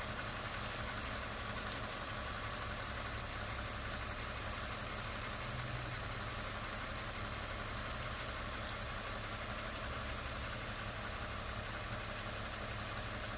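2019 Lexus ES350's 3.5-litre V6 idling steadily.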